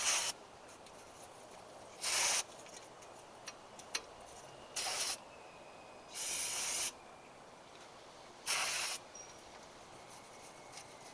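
Aerosol spray can hissing in about five short bursts, one every two seconds or so.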